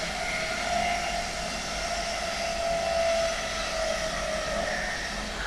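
Traction sound of a DB Class 101 electric locomotive under way: the whine of its Adtranz/ABB Micas-S GTO inverter over the steady rolling noise of the train, heard from the coach behind the locomotive. The whine sits in a few tones that waver slightly in pitch.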